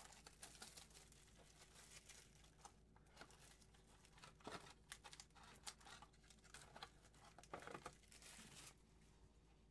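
Faint tearing and crinkling of plastic and paper packaging, in irregular crackles and short bursts, as a sealed trading-card box is opened.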